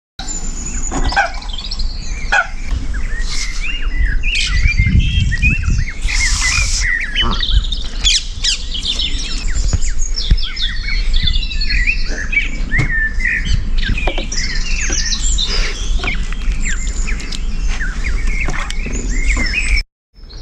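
Canada goose goslings calling: many short, high peeping chirps, thick and overlapping, with occasional squawks, over a steady low rumble.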